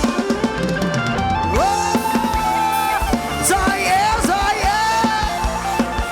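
Live band playing Thai ramwong dance music: a drum kit keeps a steady beat under a held lead melody whose notes slide and bend in pitch.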